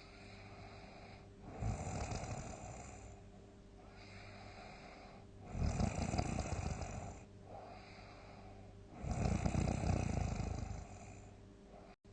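A sleeping person snoring heavily: three loud snores, about one every three and a half seconds, with quieter breaths in between.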